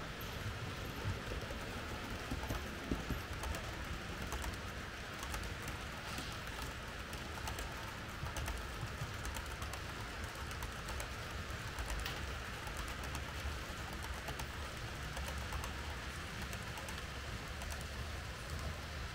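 H0-scale Märklin model train running on the layout: a steady low rumble and whir with many light, irregular clicks throughout.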